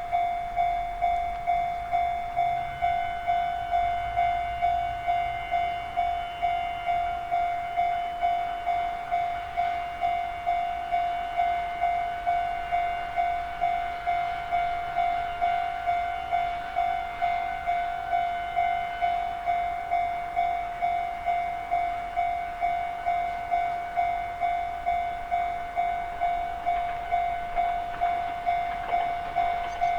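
Japanese railway level-crossing warning bell ringing "kan-kan" in an even, steady rhythm of about one and a half strikes a second. A fainter, higher second ringing tone joins it from a few seconds in until past the middle, over a low rumble at the start.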